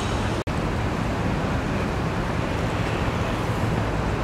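Steady wind on the microphone and river water, with a low rumble underneath. The sound cuts out for an instant about half a second in.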